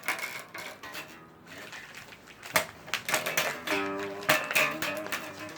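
Guitar music playing in the background, with two sharp clicks, one at about two and a half seconds and one at about four seconds.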